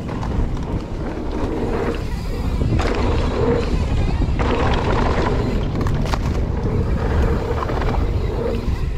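Background music over a steady low rumble of a mountain bike riding a dirt trail.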